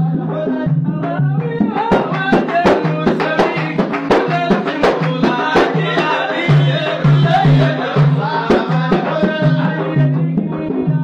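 Sudanese madih praise singing: men's voices over frame drums and hand claps. About two seconds in, the drum and clap strokes come thick and sharp, then thin out again near the end.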